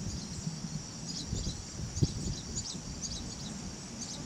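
A chorus of insects trilling steadily in a high band, with pulsed chirps repeating several times a second. Beneath it runs a low rumble, with a single dull thump about two seconds in.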